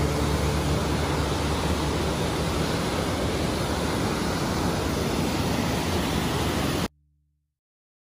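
Steady rush of water from a mountain stream and waterfall, an even hiss across low and high pitches, cutting off abruptly about seven seconds in.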